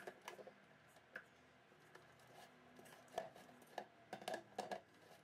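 Near silence broken by a few faint taps and clicks, most of them in the second half: a stainless-steel stand-mixer bowl and mixer head being handled and fitted into place, with the motor not running.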